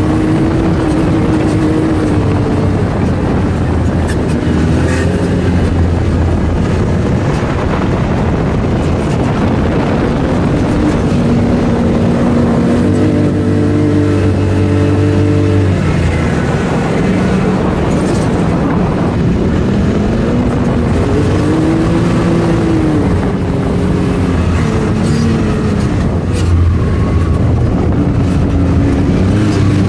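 Sand rail engine running hard while driving over sand dunes, its pitch rising and falling with the throttle over a steady rush of noise.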